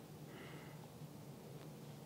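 Near silence: quiet kitchen room tone with a faint steady low hum.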